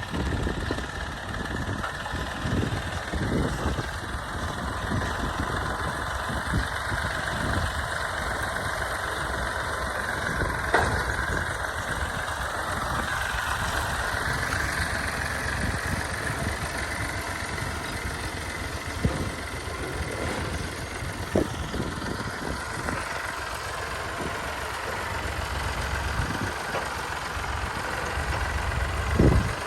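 Old Fiat 480 tractor's diesel engine running steadily for a long stretch, with irregular low thumps and knocks throughout.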